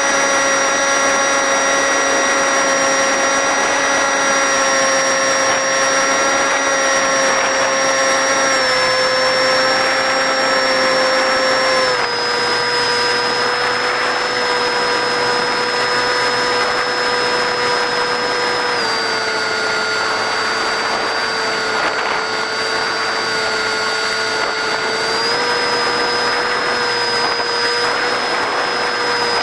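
Electric motor and propeller of a small RC park-flyer plane running with a steady high whine. The pitch steps down a little three times with throttle changes and rises again near the end.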